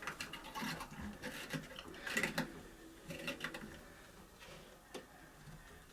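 A spring doorstop being screwed into a wooden board: small clicks and scraping as it turns in the wood, thinning out after about three and a half seconds.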